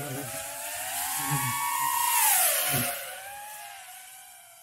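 FPV quadcopter's brushless motors spinning Dalprop folding propellers, a high whine that climbs with throttle, peaks about two seconds in, then drops and levels off. Airy propeller and wind hiss rides on top and fades as the drone eases off.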